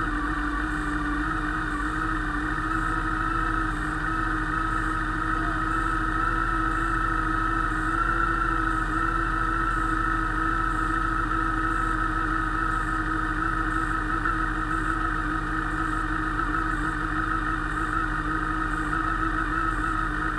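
Motorcycle engine idling steadily, freshly started, with a constant whine over the engine note.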